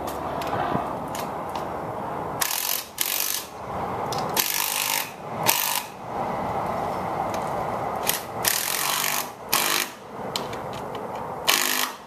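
Hand-tool work on a wooden gate: a run of short, harsh mechanical bursts, each about half a second and irregularly spaced, over a steady background hum.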